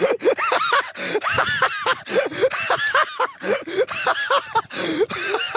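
Hard, uncontrolled human laughter in quick repeated bursts, with short gasping breaths between them.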